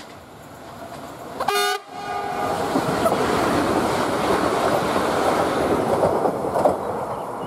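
A Koleje Śląskie electric multiple unit sounds one short horn blast about a second and a half in. It then passes close by at speed, with a loud rush of wheel and rail noise that eases off near the end.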